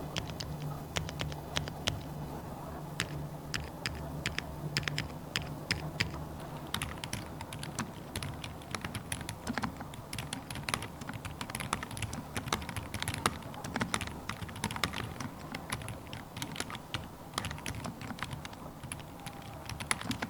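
Typing on an Idobao ID67 mechanical keyboard fitted with Elf linear switches: an irregular stream of keystrokes, getting faster after about seven seconds, over a low hum early on.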